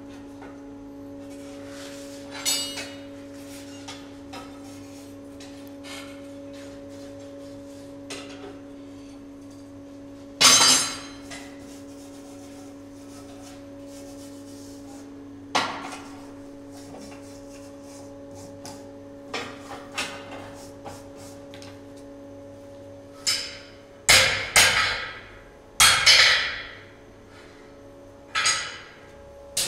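Blacksmith's hammer striking hot iron on steel, each blow ringing out. Loud strikes come one at a time, then in a quick run over the last six seconds, with lighter taps between and a steady machine hum underneath.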